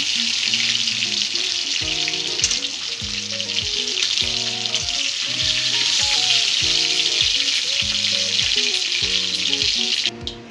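Pieces of catla fish sizzling in hot oil in an aluminium kadai, lightly fried and being lifted out with a spatula; the steady sizzle cuts off suddenly near the end. Background music of short, evenly spaced notes plays underneath.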